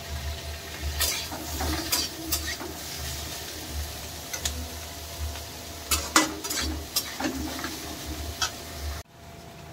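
A metal spoon or spatula stirring food in a pan, with irregular clinks and scrapes against the metal over a light sizzle. The sound cuts off abruptly near the end.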